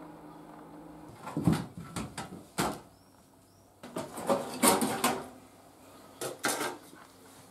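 Clattering and knocking as hands work inside an opened desktop computer case, metal panels and parts being handled, in three short bouts of knocks.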